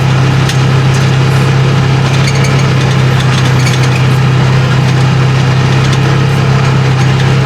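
Polaris two-seater side-by-side's engine idling steadily with a constant low hum, left running so it can cool down.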